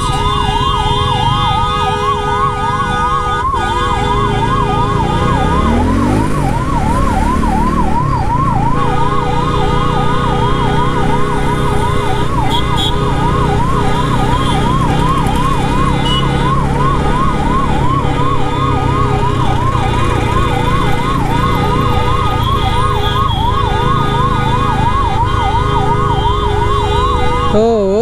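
Ambulance siren in a fast, even warble, several rises a second, shifting to a lower, slower wail right at the end. Heard over the steady rush of wind and road noise from a moving motorcycle.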